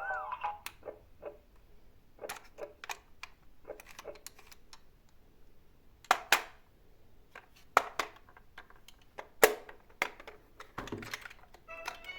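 Toy cars clicking and clattering, an irregular run of small sharp knocks with a few louder clacks in the middle stretch. Brief music at the very start and again near the end.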